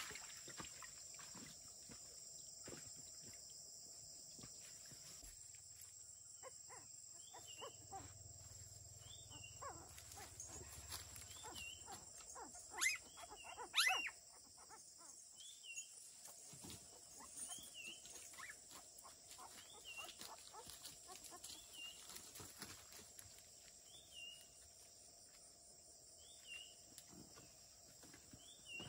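Faint animal calls: a short, high chirp that repeats about every two seconds, with two louder cries about 13 and 14 seconds in.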